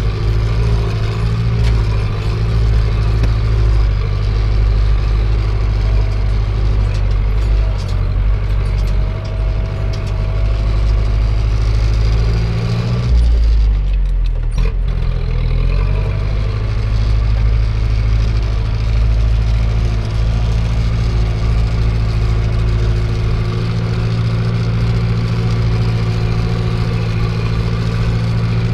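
Zetor 7045 tractor's four-cylinder diesel engine running steadily under way, heard from inside the cab. About halfway through, the engine note drops briefly and comes back up.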